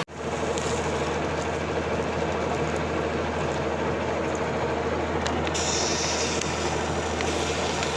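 Lathe running steadily, a continuous mechanical hum and rumble; a higher hiss joins a little past halfway.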